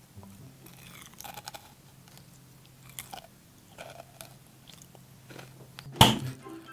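Crisp bites and chewing on a large homemade kohakutou (crystal agar candy), a few soft crunches as the sugary crust breaks. About six seconds in comes one loud smack of a plastic toy hammer striking a head.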